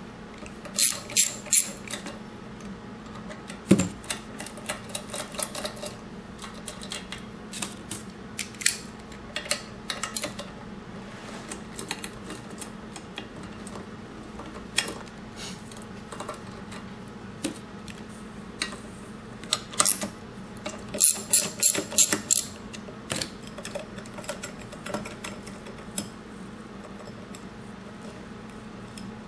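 Hand ratchet wrench clicking as it works the socket back and forth to loosen the bolts on the motor face, with small metal clinks of the tool. The clicks come in irregular runs, with the densest, loudest bursts near the start and again about two-thirds of the way through.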